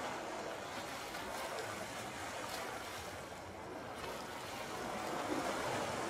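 Rough sea waves breaking and washing over a rocky breakwater: a steady rushing surf that swells a little louder near the end.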